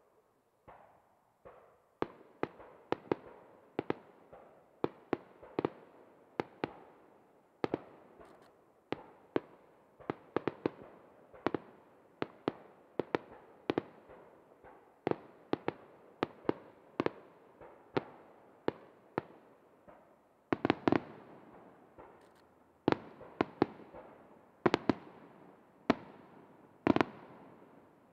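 Star mine fireworks: a steady string of sharp aerial shell bursts, about one or two bangs a second, each trailing off in a rolling echo. Heavier, louder bangs come in the last third.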